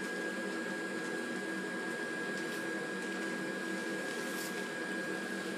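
Small electric blower fan of an inflatable Christmas decoration, taken from a Santa-on-motorcycle inflatable, running steadily to inflate a puppy inflatable. It gives a steady hum with a thin high whine.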